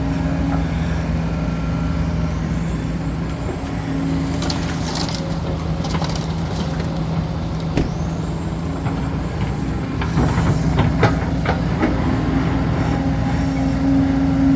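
Excavator's diesel engine running steadily while it digs, with a high whine rising twice. About two-thirds of the way in, a run of knocks and scrapes follows.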